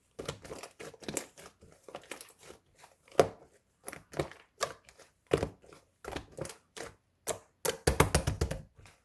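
Slime being squeezed and poked by hand, giving irregular sticky pops and clicks, with a quick flurry of pops near the end.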